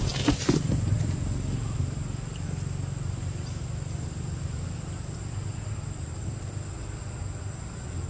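Steady low rumble like a motor running, with a thin steady high-pitched tone above it; a brief burst of rustling and knocks in the first second.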